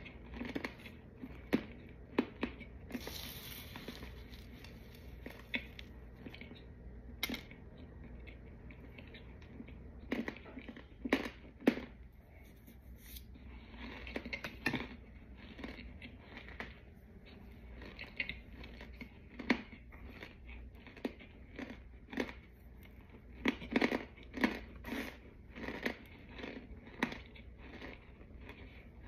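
Crisp, irregular crunching of dry, chalky white chunks, in sharp scattered crackles with a few quick clusters.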